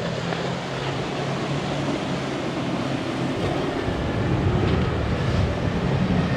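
Boat engine droning steadily over the wash of surf and wind, growing a little louder past the middle.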